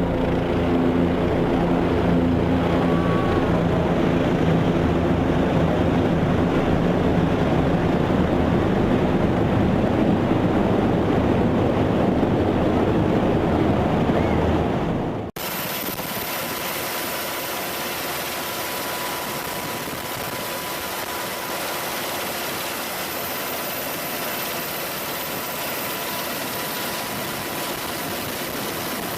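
Military helicopters running, a loud, steady drone of rotors and turbine engines. About halfway through it cuts to a quieter, steady engine sound with a thin, high whine.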